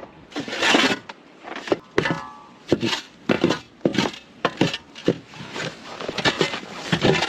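A series of sharp knocks with some scraping between them, roughly one or two a second.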